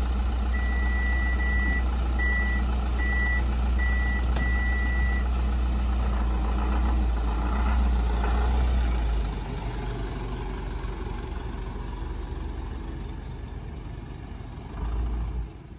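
Engine of a DMV93 dual-mode vehicle idling steadily, with a row of six short, high electronic beeps of uneven length over the first five seconds. The engine sound drops to a lower level about nine seconds in.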